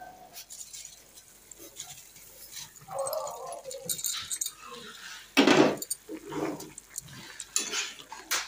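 A steel ladle stirs vermicelli into a metal kadai of simmering vegetables, scraping and clinking against the pan several times in the second half. The loudest scrape comes about five and a half seconds in.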